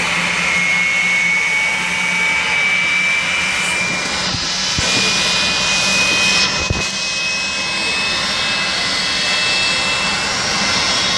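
Green Mamba jet car's jet engine running: a steady loud rushing noise with a high whine that slowly rises in pitch.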